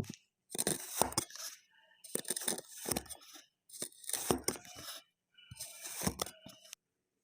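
Kinetic sand being cut and crumbled with a knife: four separate crunchy, scraping bursts, each about a second long and each cut off suddenly.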